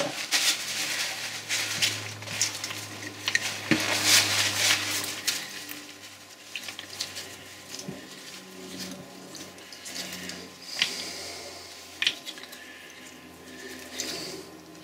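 Hands handling and turning the Boxford lathe apron's gear assembly: rubbing and handling noise for the first few seconds, then a few sharp light metal clicks and knocks.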